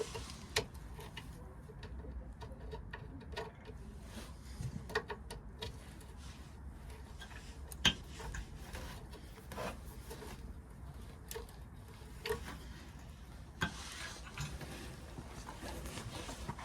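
Light scraping and scattered sharp clicks and taps of hand tools worked against the rusted shift rod inspection plate and its bolts on a VW Beetle's underside, with the loudest click about eight seconds in.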